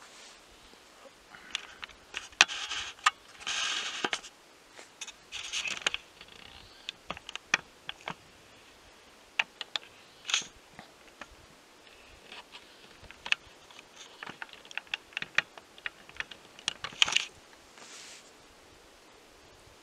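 A run of sharp clicks and short scraping rustles, irregular and close to the microphone, with the busiest clusters early on and again near the end.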